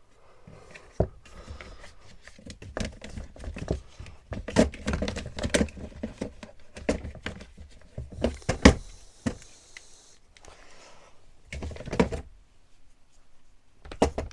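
Hard plastic cordless power tools and batteries knocking and clattering as they are lifted out of a plastic tool box and set down, with irregular knocks of varying strength and a short rustling stretch near the middle.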